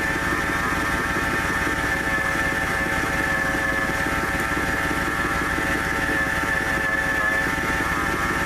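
1997 Ford F-150 engine idling with a steady, high-pitched whine from the engine's belt-driven accessories. The whine persisted after the air-conditioning compressor pulley was replaced, so it is not that pulley's bearing.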